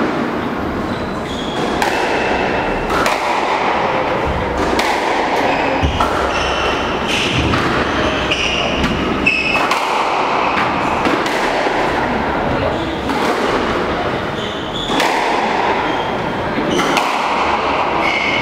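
Squash rally: the ball is struck by rackets and smacks against the front wall and glass, a run of sharp hits about one every second, echoing in the hall. Short high squeaks of the players' shoes on the wooden court floor come between the hits.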